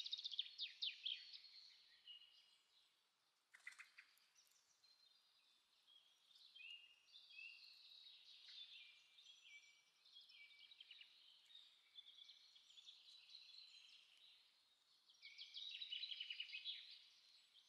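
Faint birdsong: several small birds chirping and trilling, with busier runs of quick chirps at the start and again about fifteen seconds in. A single sharp click comes about three and a half seconds in.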